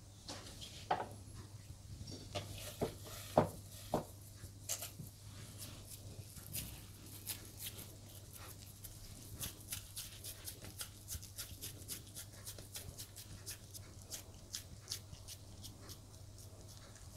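Wet hands pressing and squeezing minced meat onto seekh kabab skewers, making soft sticky clicks and taps, with a few sharper knocks in the first few seconds. A faint steady low hum runs underneath.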